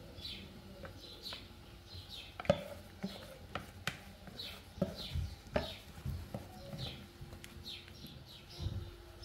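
Small birds chirping over and over in short, high, falling notes, with a few sharp knocks as a wooden spatula scrapes and taps chopped herbs out of a metal bowl into a cooking pot; the loudest knock comes about two and a half seconds in.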